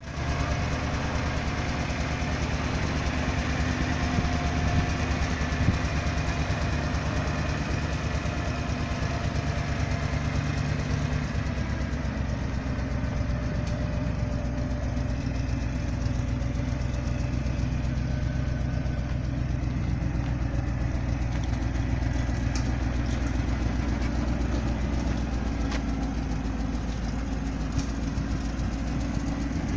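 Ford 700 dump truck engine running steadily at idle, while the hydraulic hoist raises the dump bed during the second half.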